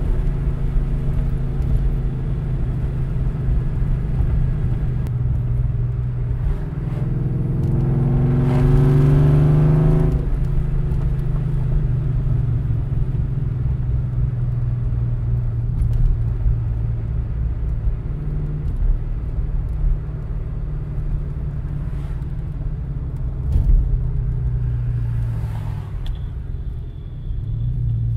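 2004 Mustang GT's 4.6-litre two-valve V8 with a full aftermarket exhaust, heard from inside the cabin while driving. The low exhaust note climbs in pitch under acceleration from about six seconds in, drops back at about ten seconds, then holds a steadier cruising drone with a brief dip near the end.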